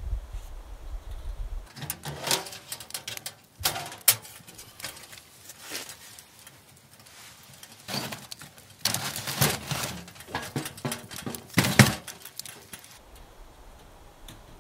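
Wood being loaded into a Winnerwell Fastfold folding steel woodstove: a log knocking and scraping against the metal firebox and door, in a string of sharp clunks and clatters, loudest about 4 s and 12 s in. Before and after, a low wind rumble on the microphone.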